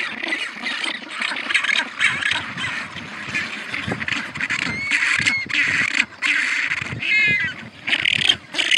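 Penguins calling: a continuous run of short, noisy calls, several overlapping, with one clearer, wavering pitched call about seven seconds in.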